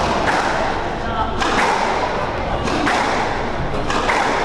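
Squash rally: sharp smacks of the racket hitting the ball and the ball striking the court walls, coming every second or so, often two close together.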